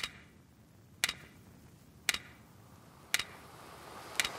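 Five sharp ticks, evenly spaced about one a second, over a faint hiss.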